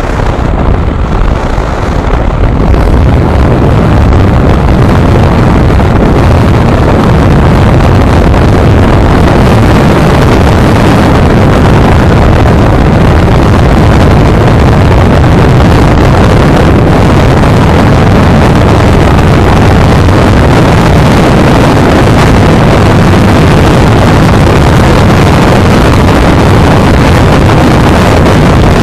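Wind rushing and buffeting over the microphone of a moving motorcycle, with the Yamaha R15M's single-cylinder engine running steadily underneath at riding speed. It grows a little louder about three seconds in, then holds steady.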